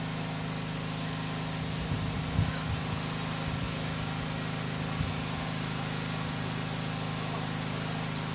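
An engine running steadily with an even hum, with a couple of faint knocks about two and a half and five seconds in.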